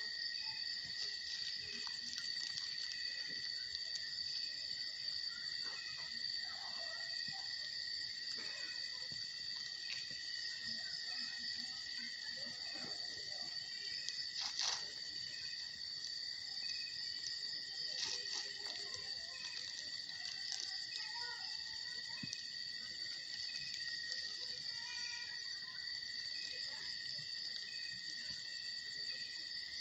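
Steady night chorus of insects, a continuous high-pitched trilling at two steady pitches, with a sharp click about halfway through.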